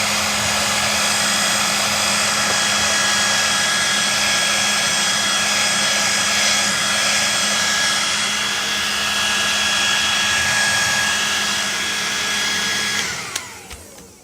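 Hair dryer running steadily with a high whine over its blowing air. It is switched off about thirteen seconds in, and the whine falls as the fan winds down.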